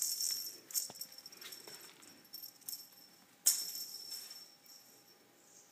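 A small jingle bell jingling in short shakes, each starting with a light click and ringing on briefly. The loudest jingle comes about three and a half seconds in, and it fades out near the end.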